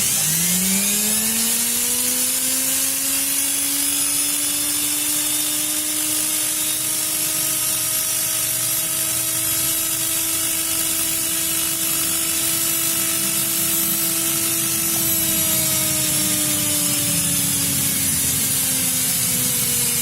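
Brushed universal motor from an LG front-load washing machine, wired straight to mains, spinning up with a whine that rises over about two seconds, then running steadily with carbon-brush hiss; its pitch sags slowly from about fifteen seconds in. The motor runs freely, the sign that it is still good.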